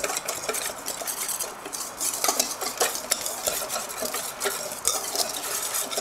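Metal whisk stirring dry cocoa powder mix in a stainless steel bowl: quick, irregular scraping and clinking of metal on metal.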